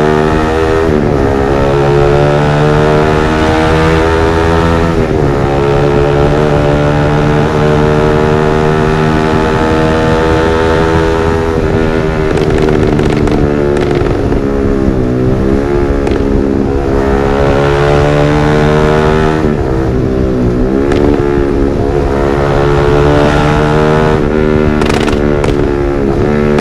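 Yamaha R15 V3's 155 cc single-cylinder engine through a Villan MP1 aftermarket exhaust, its loud note rising and falling several times with the revs. Short crackling pops come as the revs drop, most clearly about halfway through and again near the end.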